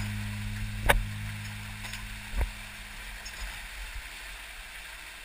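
Creek water rushing through a narrow rock gorge, with a low steady hum fading out over the first three seconds. Two sharp knocks come about one second and two and a half seconds in.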